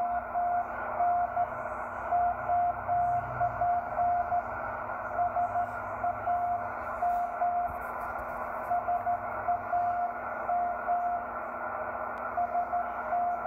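Morse code (CW) on an amateur radio receiver: a single steady tone keyed on and off in dots and dashes, with short pauses between words. It sits over a constant bed of band-limited static hiss.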